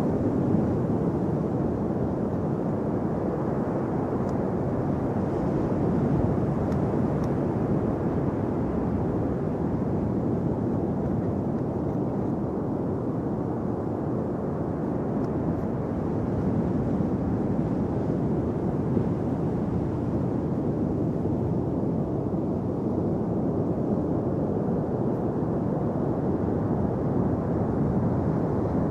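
Ocean surf breaking on a beach: a steady, even rumbling wash of waves.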